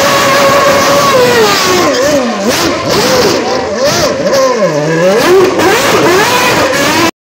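Formula 1 car's engine held at high revs, then revving up and down in quick swoops as the car spins doughnuts on smoking rear tyres. The sound cuts off suddenly near the end.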